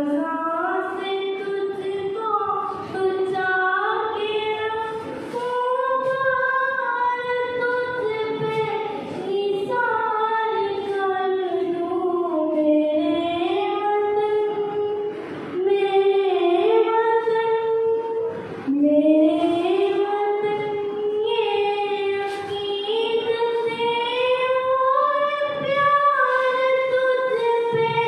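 A girl singing solo and unaccompanied into a microphone: a slow melody of long held notes that glide up and down, with short breaths between phrases.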